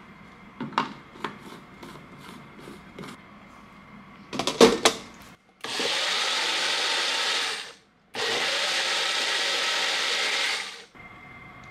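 Plastic clicks and a clatter as the cup is set onto a Magic Bullet personal blender, then its motor whirs in two runs of about two and three seconds with a short break between, puréeing a thick mixture. Each run cuts off suddenly.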